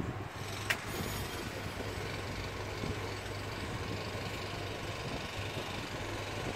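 Steady low mechanical hum and rumble, with one sharp click less than a second in.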